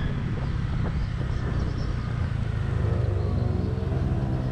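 Steady low rumble of a motor scooter ride picked up by a helmet-mounted microphone, with an engine note climbing slowly in pitch from about halfway through as it speeds up.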